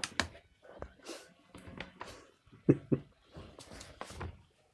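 Cat rummaging with its head inside a plastic bag of dry cat food: irregular rustling and crinkling of the bag, with two louder knocks in quick succession just past halfway.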